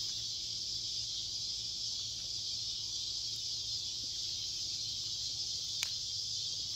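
Steady, high-pitched chorus of insects droning without a break, with a faint low hum underneath and a single sharp click near the end.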